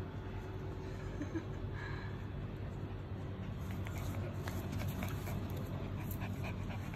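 Husky puppies scuffling in a play fight: scattered faint scratches and taps over a steady low hum.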